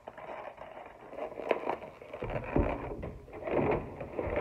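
Handling of takeout packaging: a foam clamshell box snapped shut and set down, then a paper takeout bag rustled and knocked about. The rustling is irregular, with a sharp click about a second and a half in and louder handling from about two seconds on.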